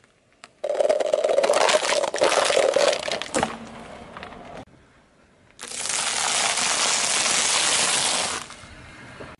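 A car tyre rolling over a row of thin plastic cups, crumpling and cracking them with many sharp snaps for about four seconds. After a short pause, a tyre crushes a pile of popcorn with steady crunching for about three seconds.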